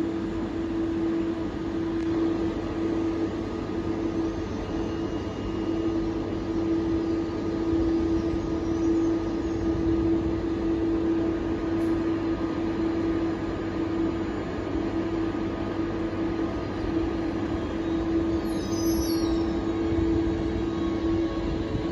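Siemens Desiro ET425M electric multiple unit standing at the platform, its onboard equipment giving a steady hum with a constant mid-pitched tone over a low rumble.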